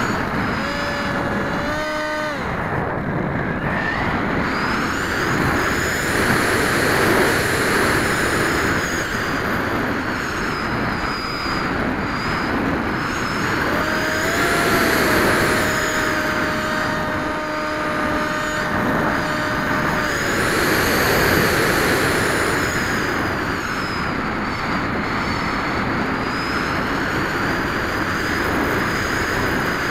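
Onboard sound of a Zaggi flying wing in flight: steady wind rush over the airframe with the high whine of its 3000Kv inrunner electric motor and propeller. The whine rises and falls several times as the throttle changes.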